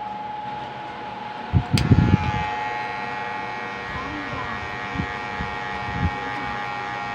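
Electric hair clipper running with a steady buzzing hum as it cuts short hair at the back of the head. A cluster of low thumps comes about a second and a half in, and a couple of softer knocks later on.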